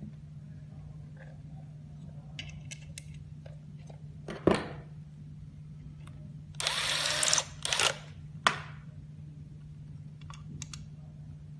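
Metal cover of a mobile DVR being put back on: a few light clicks and a knock, then an electric screwdriver whirring briefly about seven seconds in and again for a moment just after, over a steady low hum.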